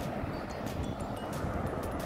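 Steady rush of car traffic on the multi-lane highway alongside, with wind buffeting the microphone.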